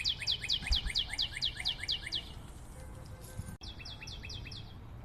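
A bird's fast trill: a quick series of short falling chirps, about six a second, which stops a little over two seconds in. A sharp click comes near three and a half seconds, and a shorter run of the same chirps follows it.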